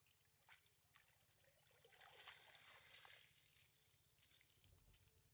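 Faint trickling and dripping of water running off a wet cast net as it is gathered and lifted out of a pond, with a couple of small clicks about half a second and a second in.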